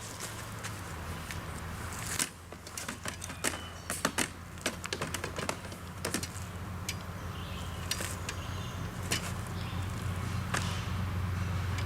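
Camping gear being packed up: scattered clicks and knocks of things being handled, over a steady low hum.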